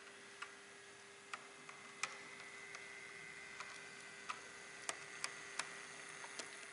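Auscision HO-scale C-Class model diesel locomotive running along the layout track: a faint, thin motor whine that sets in about two seconds in, with irregular sharp clicks as its wheels cross the rail joints.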